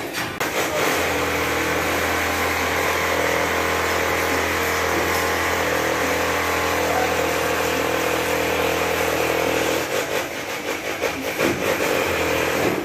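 Jackhammer running: a loud, steady mechanical din that starts abruptly, holds for about ten seconds, then turns uneven and choppy near the end.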